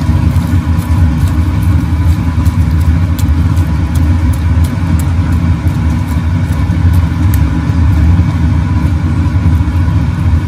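Steady, loud low rumble of running machinery with a faint steady hum over it.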